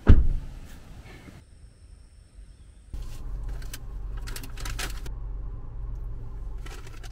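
A single loud thump at the start. From about three seconds in, a steady low rumble like a car engine idling heard inside the cabin, with short bursts of paper wrapping crinkling as it is handled and opened.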